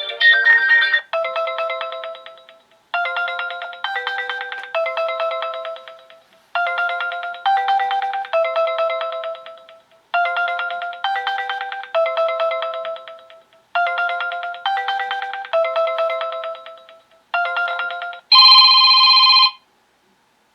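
Stock ringtones of a Sonim XP6 phone playing one after another. One tune ends about a second in, followed by a simple chiming melody whose short phrase of notes repeats about every three and a half seconds. Near the end a different ring begins, a single electronic ring like a telephone bell lasting over a second.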